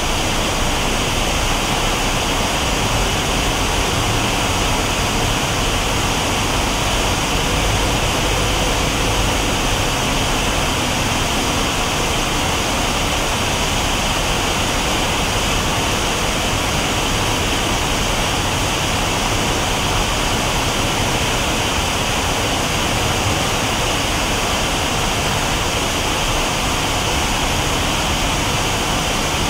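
A steady rushing noise of running machinery, even and unchanging throughout, with a hiss in the upper range and a low rumble beneath.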